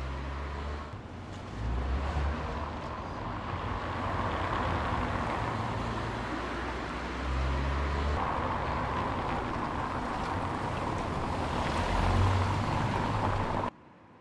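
Steady car and street traffic noise with a low rumble that comes and goes; it cuts off abruptly near the end.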